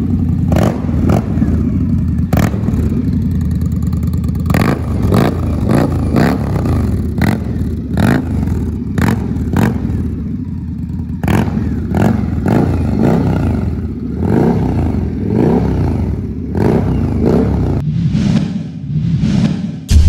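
Indian Scout Bobber's V-twin running through a full aftermarket exhaust system, revved up and down again and again, with many sharp pops over its deep rumble.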